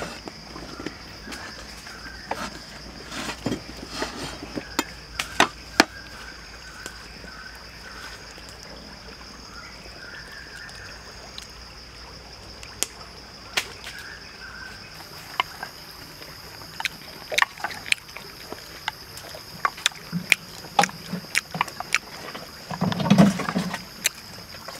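Kitchen-work noises: sharp knocks of a knife cutting limes on a wooden board, then clicks and a few heavier knocks of a spoon working in a mortar, with a cluster of dull thuds near the end. A steady high-pitched hum runs underneath.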